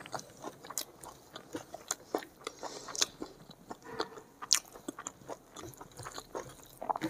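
Close-up eating sounds: chewing a mouthful of rice and egg curry while fingers mix rice and curry on the plate, heard as irregular small clicks and smacks.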